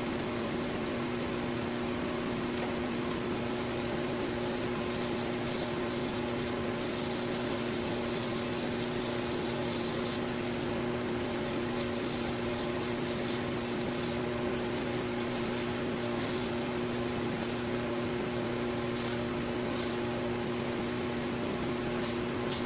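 Belt grinder running steadily with a constant motor hum, and a hiss of steel on the abrasive belt that comes and goes as the draw knife blade is pressed on and lifted off.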